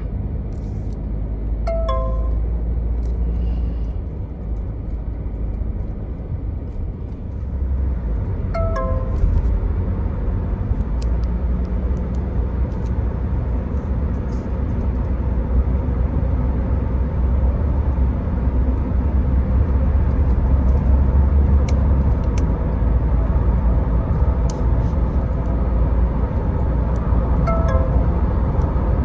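Steady low road and engine rumble inside the cabin of a moving SsangYong Rexton Sports diesel pickup. A short descending electronic chime sounds three times: about two seconds in, about nine seconds in and near the end.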